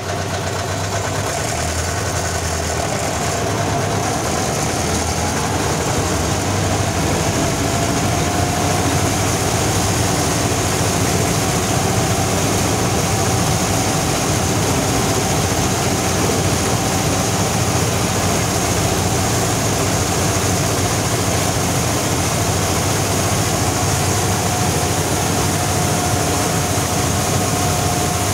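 Vladimirets T-25 tractor's air-cooled two-cylinder diesel running steadily under load, together with the Bizon Z020 combine's header and threshing machinery, heard from the tractor cab while cutting wheat. A steady whine runs through it and rises slightly a few seconds in.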